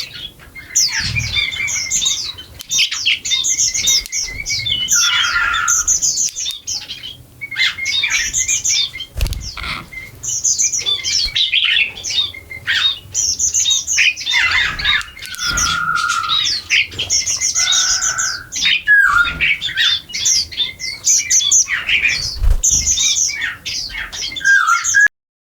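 A flock of small birds chirping and calling busily while feeding, many rapid high chirps overlapping with a few longer calls, with a few soft low thuds. The sound cuts off abruptly near the end.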